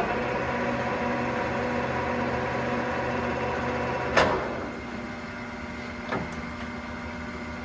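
Geared headstock of a Clausing Colchester 21-inch engine lathe running steadily with a gear whine, being run through its spindle speeds. About four seconds in there is a sharp clunk, after which the running sound drops and its pitch changes, with a smaller click a couple of seconds later.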